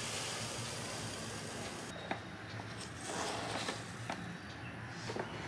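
Dry loose tea leaves pouring from a metal canister into a tin, a soft steady hiss that stops abruptly about two seconds in. After that come a handful of light clicks and taps of a small wooden spoon against the metal tin.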